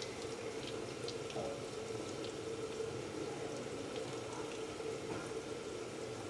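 Oiled hands gathering thin strips of paratha dough into a bundle on a tabletop, heard as faint, scattered soft clicks over a steady background hum.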